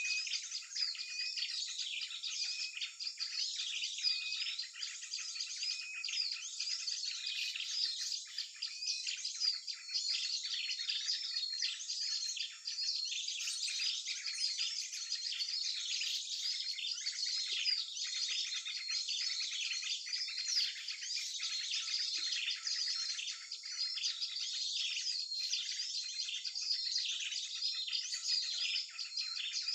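Dense, unbroken chorus of many small songbirds chirping and twittering over one another: a mixed small-bird lure call recording.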